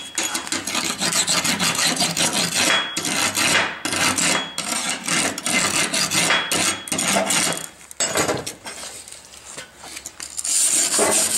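Hand wire brush scrubbed rapidly back and forth over a brass braze bead on steel plate, scraping off the glassy coating left by brazing. A fast, rasping scrape that eases off about eight seconds in and picks up again near the end.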